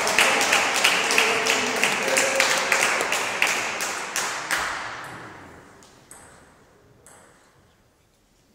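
Spectators applauding and cheering after a point, clapping in a steady rhythm, which dies away about five seconds in.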